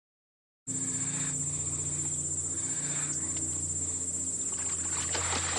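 Steady high-pitched chirring of insects such as crickets, over a low steady hum. It starts suddenly just under a second in.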